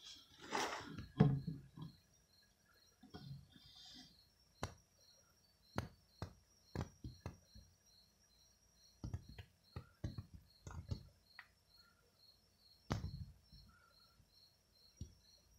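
Scattered sharp clicks and soft knocks at irregular intervals, the strongest a low thump about a second in and another near the end. Behind them, a faint high chirp repeats evenly about three times a second.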